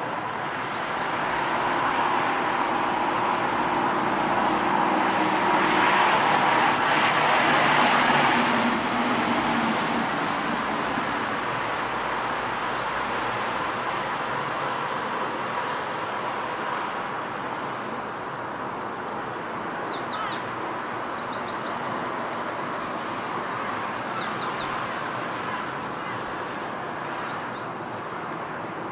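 Outdoor traffic noise with a vehicle passing, swelling to its loudest about six to eight seconds in and then fading away, while small birds chirp throughout in short, high, downward-sliding notes.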